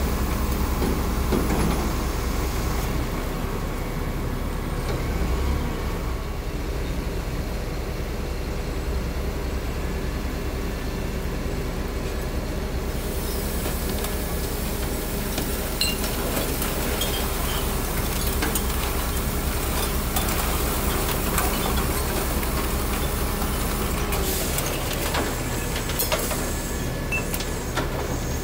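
Garbage truck running steadily while it ejects a load of recycling out of its raised tailgate: a low engine drone under the rustle and scattered clatter of cardboard and other recyclables falling onto the pile.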